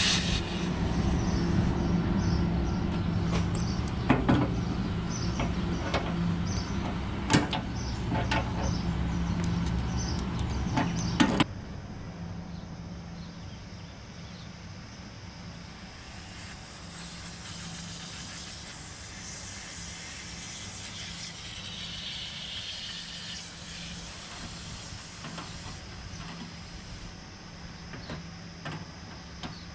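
A steady low hum with a few sharp metallic clicks as a hex key works the brass service valves of an air-conditioner's outdoor unit. About eleven seconds in the hum cuts off suddenly, leaving a quieter background with a faint hiss.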